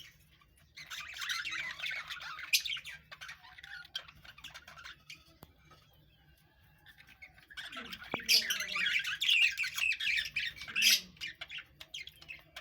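A colony of budgerigars chattering and squawking together in rapid, overlapping calls. There are two loud spells of chatter with a quieter lull between them.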